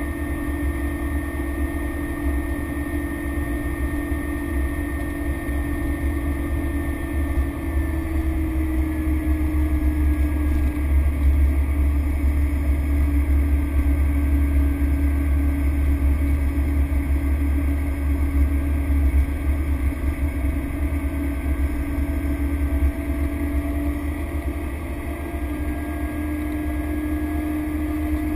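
Cessna Grand Caravan's Pratt & Whitney PT6A turboprop engine and propeller running steadily: a deep rumble under a steady propeller hum. The hum's pitch drops slightly about nine seconds in and comes back up near the end.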